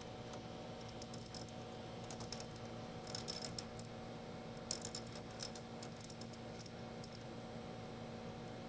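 Faint metallic clicking and rattling in scattered clusters over a steady hum: a tap and its tap handle being backed out of a freshly threaded hole in a part held in a lathe chuck, the handle shaking loosely as the last threads let go.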